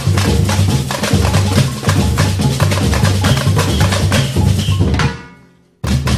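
Background music with a fast, heavy drum beat and a bass line. It fades out about five seconds in, and the music starts again abruptly just before the end.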